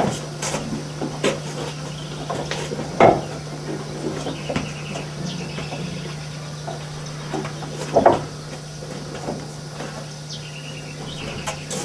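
Knocks and shuffling of a cow and calf in a wooden cattle pen, with two louder knocks about three seconds and eight seconds in. Small birds chirp faintly now and then over a steady low hum.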